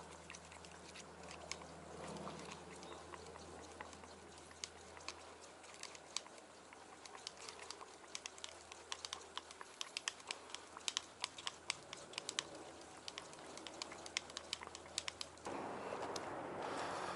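Mixing stick clicking and scraping against a clear plastic mixing cup as epoxy resin is stirred: a quick, irregular run of sharp clicks. Near the end it gives way to a louder, even outdoor rush.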